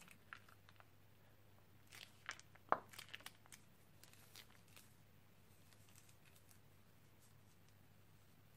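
Plastic slime piping bag crinkling as it is handled: a cluster of short crinkles and clicks about two to three and a half seconds in, one sharper snap among them, with faint scattered crinkles after and near silence otherwise.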